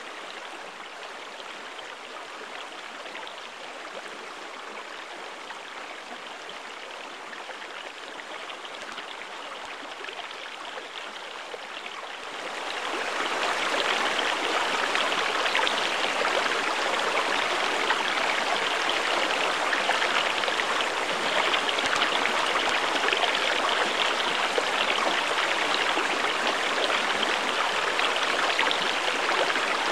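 Steady rush of running water, which grows clearly louder about twelve seconds in.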